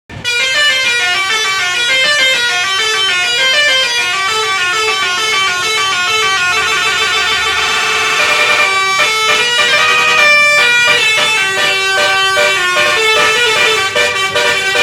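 Tour bus's 'telolet basuri' musical air horn playing a fast tune of many short notes stepping up and down. It starts abruptly, and about two-thirds of the way through the tune turns choppier, with brief breaks between notes.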